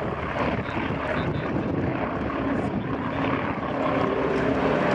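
Junkers Ju-52 trimotor's three radial engines and propellers at takeoff power just after liftoff, a steady drone that grows slightly louder toward the end.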